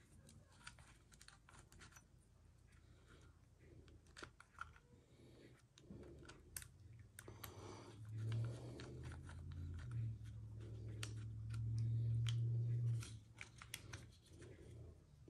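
Small clicks, taps and scrapes of a screw being worked out of a Kel-Tec KSG shotgun by hand. About halfway through a low steady hum comes in and stays for several seconds, then stops.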